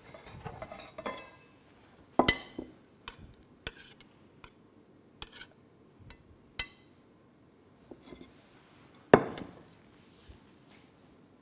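Kitchenware clinking as a dessert is assembled: a spoon tapping and knocking against glass and crockery in a dozen or so separate clinks. The two loudest knocks come about two seconds in and about nine seconds in.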